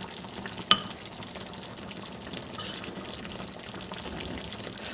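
Salmon and pork belly braising in a clay pot, the sauce boiled down to a thick glaze and bubbling and sizzling steadily. A single sharp clink of the metal spoon against the pot comes about a second in.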